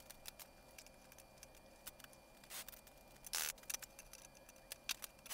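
Light clicks and knocks of wooden slats and hand tools being handled on a trunk lid, with two short scraping rushes about two and a half and three and a half seconds in.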